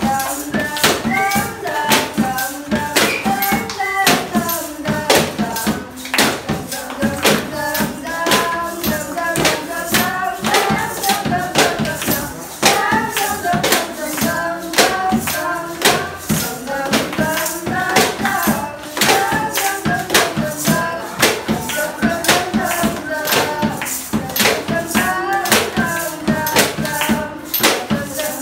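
A group of students singing together to improvised percussion: a steady beat of sharp taps from a drummed plastic water jug, a tin can and sticks.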